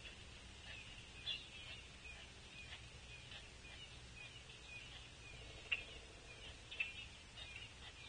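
Faint outdoor bird-feeder ambience: small birds chirping on and off throughout over a steady low rumble, with a few sharp taps, the loudest about halfway through and again a second later.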